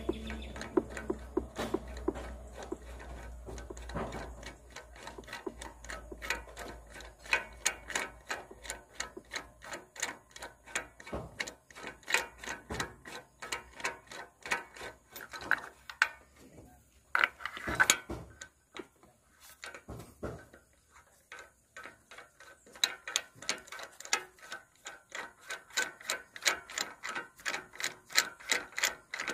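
Ratchet wrench clicking in quick runs of strokes while spark plugs are being loosened and backed out of a Suzuki Multicab's engine, with a pause of a few seconds past the middle.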